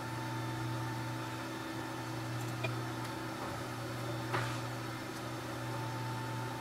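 Steady low electrical hum of room tone with a faint steady whine above it, broken by two faint clicks near the middle.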